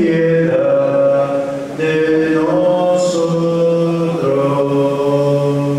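Voices singing a slow liturgical chant of the Catholic mass, holding long notes and stepping between them.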